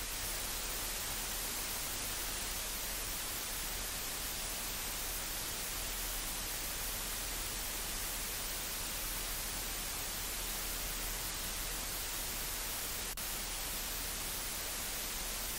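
A steady, even hiss with no change in level.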